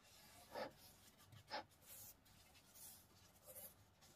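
Faint rubbing and swishing of a gloved hand spreading wet acrylic paint across a canvas, with two brief, slightly louder rubs or taps about half a second and a second and a half in.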